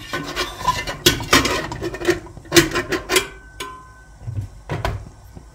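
Stainless-steel pressure cooker lid being unlocked and lifted off, making several sharp metal clanks and clicks. The cooker has cooled a little with the heat off.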